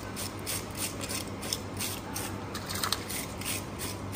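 Metal fish scaler scraping scales off a fish on a wooden chopping block: quick rasping strokes, about four a second.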